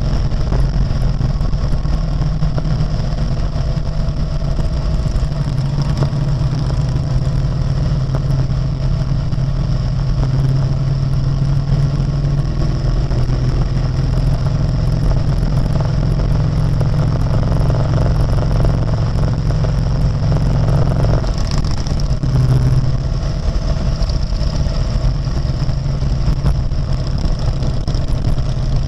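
Harley-Davidson Road King's V-twin engine running steadily at cruising pace, a deep, continuous engine note, with a brief change in the sound a little over 20 seconds in.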